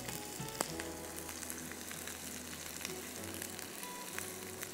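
Sliced onion and capsicum sizzling in hot oil in a pan with garlic, green chillies and curry leaves, a steady crackle of frying. One sharp click about half a second in.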